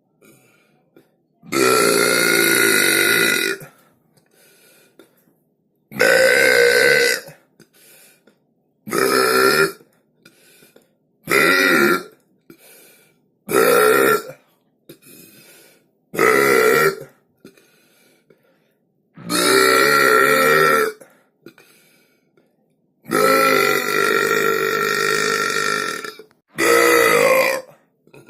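A person burping loudly, about nine separate belches a second or two apart; most last under a second, and two are drawn out for two seconds or more.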